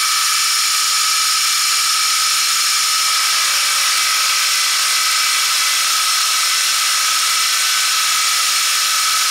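Vertical milling machine running steadily, not cutting: an even high hiss with a steady whine.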